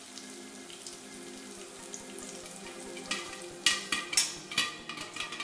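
Corn kernels sizzling in hot butter and oil in a pressure-cooker pan on high flame; from about three seconds in the kernels start popping, sharp pops under a glass lid, a few a second.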